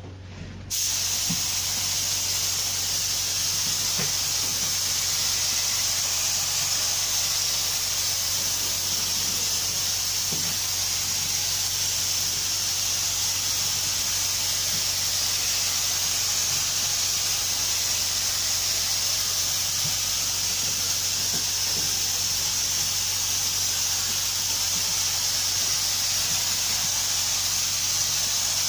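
Air-fed gravity-cup paint spray gun hissing steadily as it sprays a panel; the spray starts again less than a second in after a short break, then holds without pause. A faint steady low hum runs underneath.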